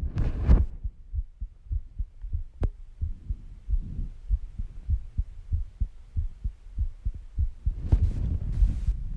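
Human heartbeat: a steady run of dull, low thumps. A breath is heard right at the start and again about eight seconds in, with one sharp click in between.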